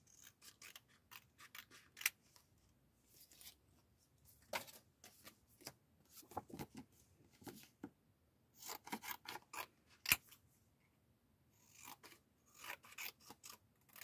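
Scissors cutting a printed paper photo: quiet, irregular snips in short runs, with some paper rubbing between cuts.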